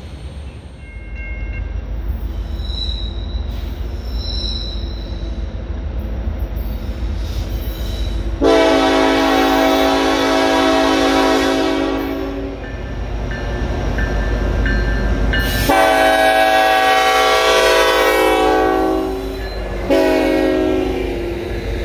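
Norfolk Southern freight train's diesel locomotives rumbling as they approach. The lead locomotive's air horn blows two long blasts, and a third starts near the end.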